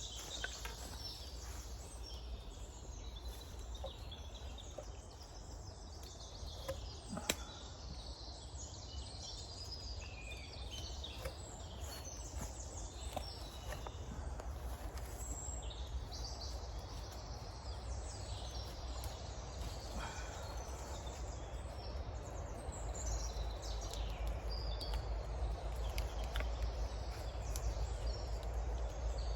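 Woodland ambience: small birds chirping and calling over a steady low rumble, with a few sharp clicks.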